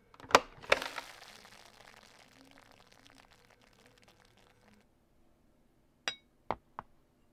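Zojirushi rice cooker lid released by its button: two sharp clicks as the latch lets go and the lid springs open, followed by a soft hiss that fades over about four seconds. Near the end, three light ringing clinks as the glass salad bowl is set down.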